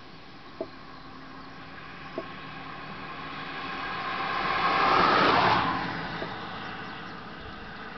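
A vehicle passing by: a rushing noise that swells to a peak about five seconds in, then fades away.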